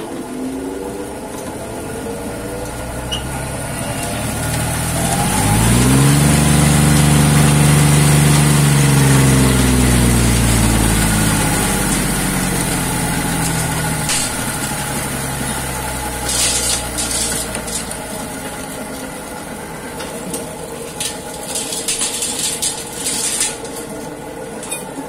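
Belt-driven sand hammer mill starting up after its hammer blades were replaced. The drive hum rises in pitch about five seconds in, then slowly sinks and settles into a steady run, with scattered rattles and clicks in the second half.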